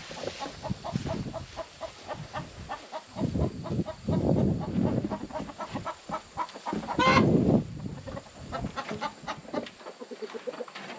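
A flock of chickens clucking in short, repeated notes, mixed with low rustling and handling noise from a person moving among them. A brief louder call or creak stands out about seven seconds in.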